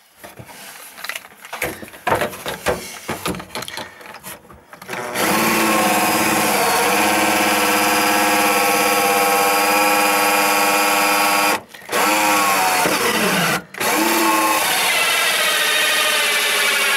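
Cordless drill with a hole saw boring into a wooden panel. First a few seconds of scattered knocks and clicks as it is set in place, then about five seconds in the drill runs steadily with a high whine, stopping briefly twice, once with its pitch dropping as it slows, before running on.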